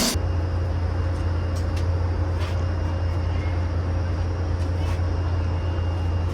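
Steady low-pitched machine drone at an even level, with a faint higher hum over it.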